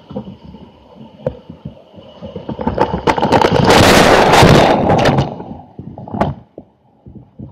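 Whitewater of a big river rapid crashing over a raft and over the camera: a loud rush of water that builds from about two and a half seconds in, peaks around four seconds with splashes and knocks, then fades, with one more sharp splash near the end.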